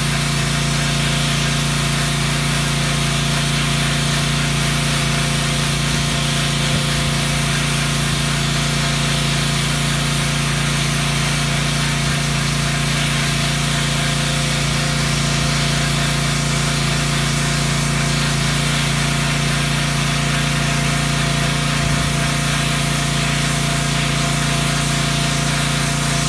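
Pressure washer running steadily, with a low hum under the hiss of its high-pressure jet spraying onto the concrete, without a break.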